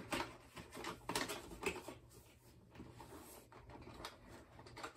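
Light clicks and rustles of plastic toy packaging being handled, scattered irregularly and faint.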